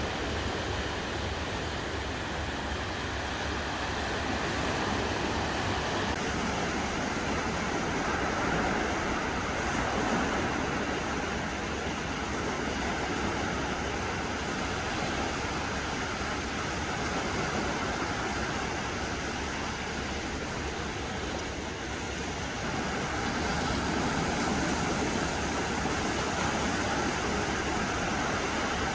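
Small, gentle sea waves washing onto a sandy beach, a continuous rushing hiss that swells and eases slowly, with wind in the background.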